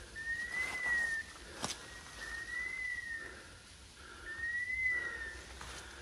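Electronic beeper collar on a hunting dog sounding a whistle-like tone that rises a little and falls back, about a second long, repeating every two seconds.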